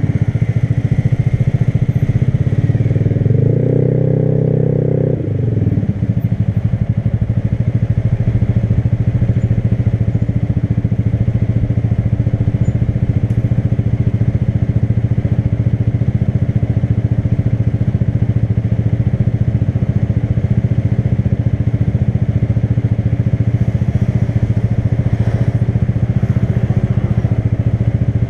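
Motorcycle engine under throttle for the first few seconds. About five seconds in it eases off and settles into a steady, even run.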